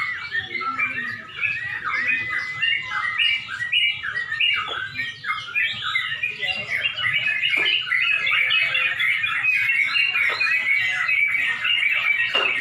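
Several yellow-vented bulbuls (trucuk) singing at once, a dense, unbroken overlap of short chattering, bubbling phrases with now and then a quick downward-sliding note.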